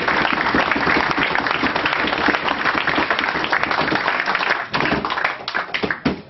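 Audience applauding. The clapping is dense at first, then thins to a few scattered claps over the last second and a half and dies away.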